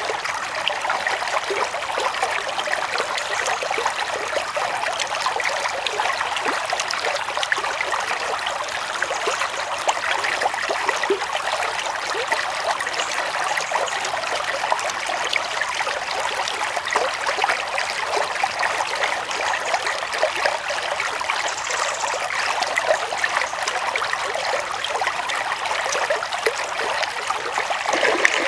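Shallow stream running and trickling steadily.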